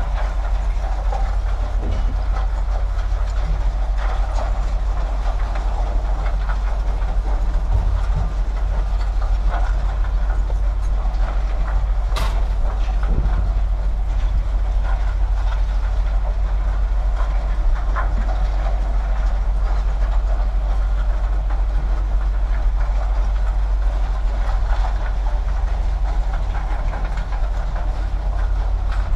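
An engine idling with a steady low hum, under irregular clattering and knocking of scrap steel being unloaded and handled, with one sharp metallic crack about twelve seconds in.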